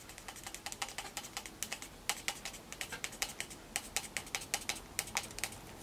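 Cotton-wrapped toothpick soaked in alcohol scrubbing a stain on a hard plastic action figure: a run of short scratchy strokes, about three to four a second, denser in the second half.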